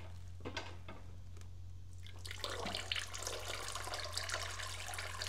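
Automatic transmission fluid pouring out of the dipstick hole of a tipped 6L90E transmission case and splattering onto plastic sheeting: leftover fluid still in the case after the pan was drained. There are a couple of faint knocks at first, then a steady, crackling pour starting about two seconds in.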